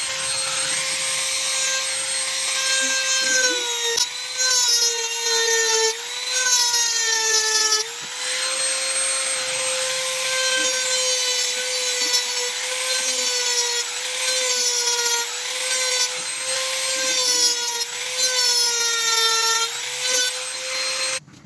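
Maktec compact trim router running at speed and cutting into the inner rim of a wooden ring: a steady high motor whine over the hiss of wood being cut, its pitch dipping again and again as the bit bites in. The sound cuts off suddenly near the end.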